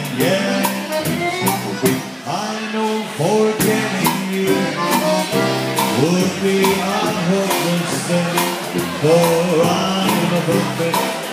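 Live polka band playing a dance tune on keyboard, with a drum kit keeping a steady beat.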